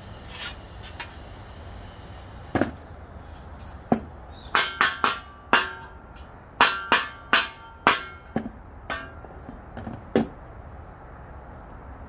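Wooden hand brush knocking against a metal dustpan, about a dozen sharp knocks with a short ring, tapping swept garden debris out into a bucket.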